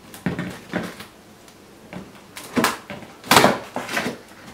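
Flaps of a large cardboard box being pulled open, the cardboard scraping and rustling against its plastic stretch wrap in several short bursts, the loudest about three and a half seconds in.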